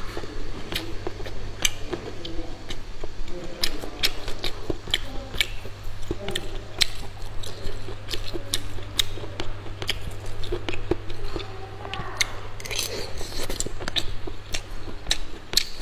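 Close-miked eating of spicy beef fried rice: chewing, with frequent sharp clicks of a spoon against the container. A steady low hum runs underneath.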